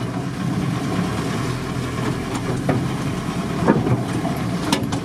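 Volkswagen Transporter T3 van driving slowly over a rough dirt track, heard inside the cabin: a steady engine hum with a few sharp knocks and rattles, the loudest near the end.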